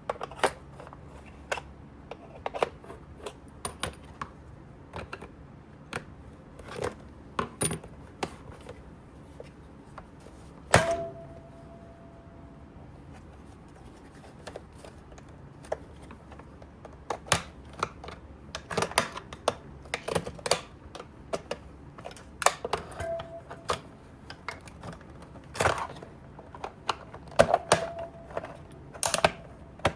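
Plastic housing of a Little Tikes Story Dream Machine toy projector being handled and taken apart by hand: irregular clicks, knocks and rattles of small parts, busier in the second half. A few knocks, the loudest near the middle, leave a short ringing tone.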